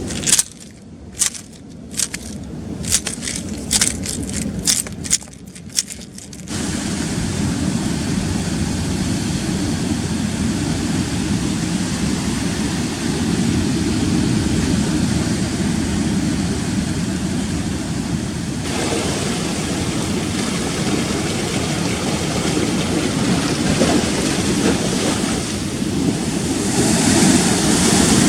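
Rough sea surf with wind buffeting the microphone: a steady noise that grows louder near the end. The first six seconds hold a string of about eight sharp knocks over a quieter background before the surf noise comes in abruptly.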